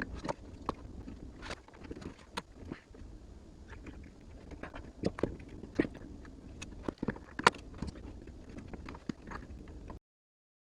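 Irregular small clicks, taps and knocks of hands working a replacement automatic air vent in a Worcester Greenstar 28i Junior boiler, trying to push it into place as it refuses to seat. The loudest knock comes about seven and a half seconds in, and the sound cuts off abruptly near the end.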